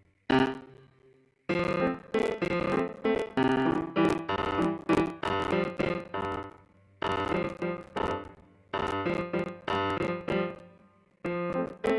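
Piano-type keyboard playing a series of struck chords, each ringing and fading, in phrases broken by short pauses.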